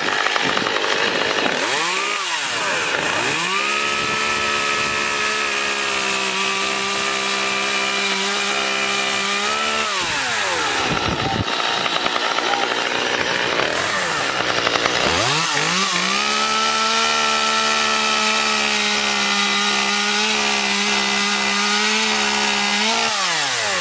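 Small two-stroke petrol chainsaw revved up to full throttle and held there for about seven seconds, then dropped back to idle. It is revved up again and held for about seven more seconds while sawing into a log, and eases off near the end.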